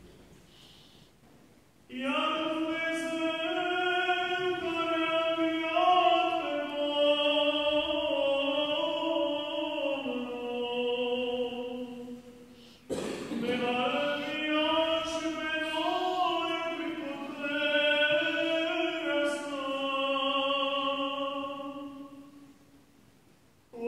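Solo male voice chanting the Apostol (Epistle reading) in the first tone of the Byzantine eight-tone system, glas I. It comes in two long melodic phrases, the first starting about two seconds in and the second following a brief breath about halfway, fading away near the end.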